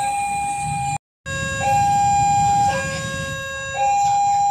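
Railway level-crossing warning alarm sounding its two-tone signal, a high and a low tone alternating about once a second. The sound drops out for a moment about a second in, then the alternation carries on.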